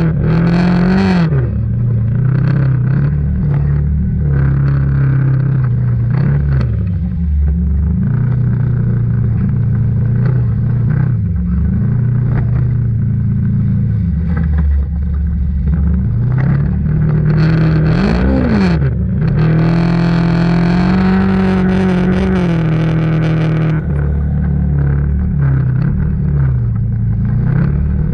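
ATV engine running under changing throttle, its pitch rising and falling again and again as it revs up and eases off. There is a quick rev up and down just past halfway, then a few seconds held at higher speed.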